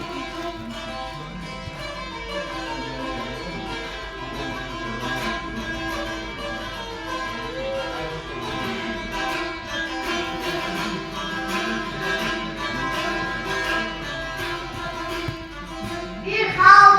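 Azerbaijani saz being played: a continuous run of quickly plucked notes over steady sustained tones. A singing voice comes in loudly near the end.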